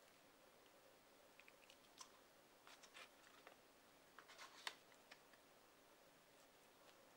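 A small plastic sauce cup and a fork being handled over a paper food box: faint scattered clicks and light taps, bunched in the middle, the sharpest about two-thirds of the way through.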